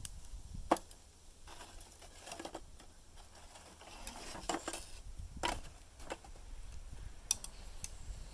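Irregular sharp clinks and knocks of hard objects being handled, about seven strikes spread unevenly, the sharpest about three quarters of a second in.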